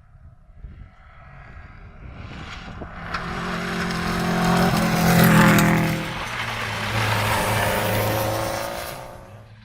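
Rally car approaching, passing close with its engine at speed, then moving away. The engine note drops in pitch as it goes by and the sound fades near the end.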